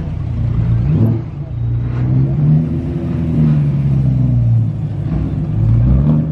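High-performance car engines, among them a Dodge Viper's V10, rumbling past at low speed. Short throttle blips come about one second in, about two seconds in and near the end, with the engine pitch rising and falling between them.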